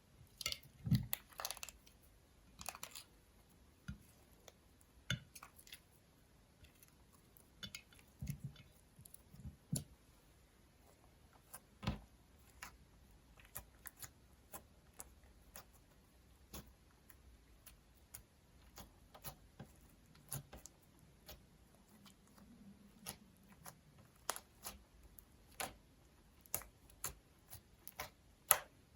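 Slime being mixed and worked, making irregular soft sticky clicks and pops, with a denser cluster about a second in.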